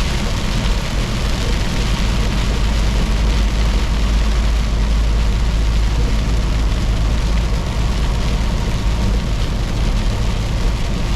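Semi truck running steadily at highway speed on a wet road: a steady low engine drone under an even hiss of tyres, spray and wind.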